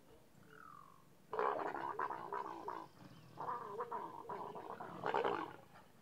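Mating leopards growling loudly in three rough bouts, starting about a second in and stopping near the end.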